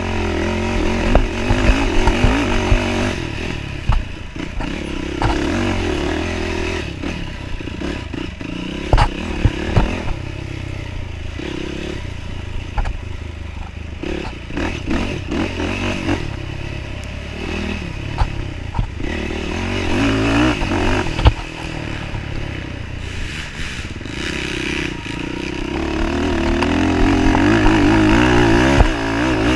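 Off-road dirt bike engine running hard under a rider, the revs rising and falling with the throttle, with frequent sharp knocks and rattles from the bike bouncing over a rough trail. Near the end the revs climb and stay up.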